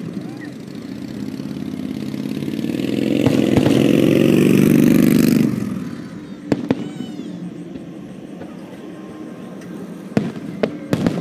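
Aerial fireworks bursting overhead as scattered sharp bangs, several of them close together near the end. A motor vehicle passes close by, its engine swelling to the loudest sound about three to five seconds in and then dropping away suddenly.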